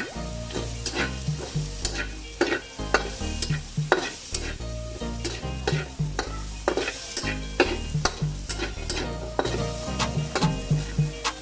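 Onion frying in hot oil, sizzling, while a spatula stirs it, with irregular taps and scrapes against the pan a few times a second.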